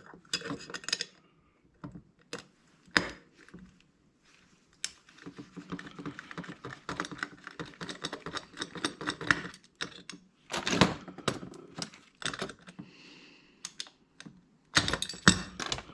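Hand tools clicking, tapping and knocking on the small metal parts of a hard drive as its second magnet is worked loose. A long run of rapid ticks comes in the middle, with sharper knocks near the end.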